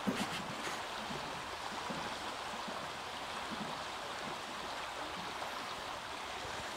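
Steady rushing of creek water flowing, with a few faint knocks in the first second.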